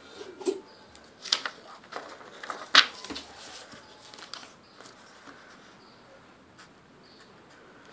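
A sheet of printer paper being folded and creased by hand on a wooden table: a few short rustles and crinkles, the loudest about three seconds in, then fainter handling.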